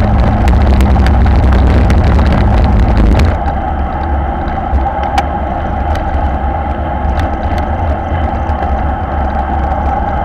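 Wind buffeting the microphone of a bike-mounted camera riding in a racing bunch at about 40 km/h, with the rattle of road-bike tyres on brick paving. A few seconds in, the rattle stops and the noise drops to a smoother hum as the road changes to asphalt.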